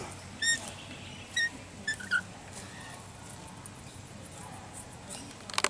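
Rainbow lorikeet giving four short, high squeaky chirps within the first couple of seconds, followed by a few sharp clicks near the end.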